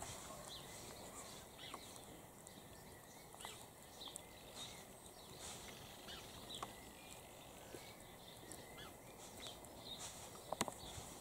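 Quiet outdoor ambience with faint, scattered high chirps and squeaks, and a few light knocks near the end.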